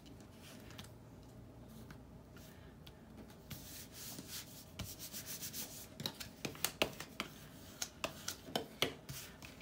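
Paper being rubbed and pressed down by hand onto a collage journal card, the glued image smoothed flat. From about six seconds in, a small handheld tool is rubbed over it in quick, short, scratchy strokes.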